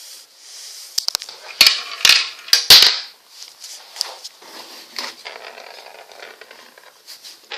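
A glass marble clattering through a plastic marble run: sharp clicks and knocks in the first three seconds, then a steady rolling rattle along the track that fades out near the end.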